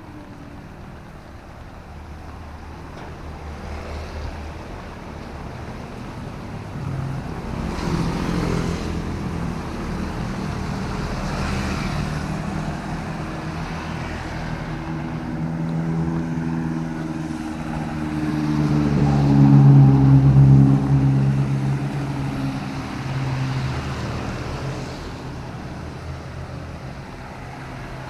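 Motor vehicles passing on a wet city road: engine hum and tyre hiss swell and fade, with the loudest engine, a low drone, going by about twenty seconds in.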